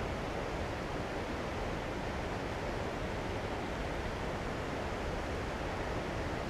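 Steady rush of water pouring through a dam spillway, an even noise without breaks or distinct events.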